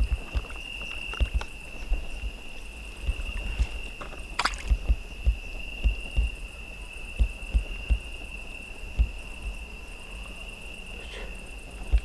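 A cricket's steady high trill held throughout, under irregular low knocks and bumps of handling close to the microphone, with one sharp click about halfway through.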